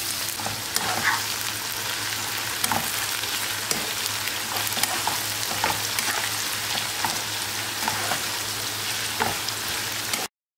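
Diced potatoes, carrot, zucchini and peppers sizzling in hot oil in a stainless steel frying pan, with sharp crackles and the clicks and scrapes of a metal slotted spoon stirring them. The sound cuts off suddenly near the end.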